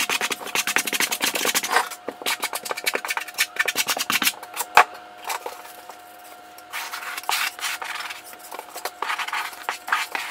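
Thinset mortar being scraped onto Kerdi-Board with a handheld trowel in quick repeated strokes, with a brief lull around the middle and one sharp knock a little under five seconds in.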